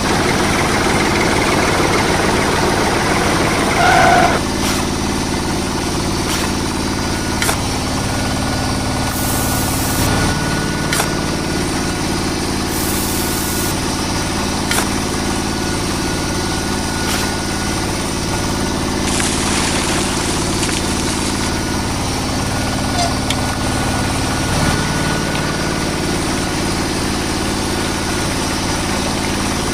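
An engine running steadily at idle, with a few short clicks over it.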